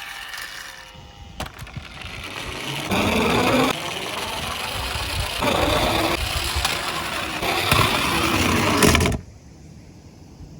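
Plastic toy cars rolling and clattering along a toy track, a continuous rattling that cuts off suddenly about nine seconds in.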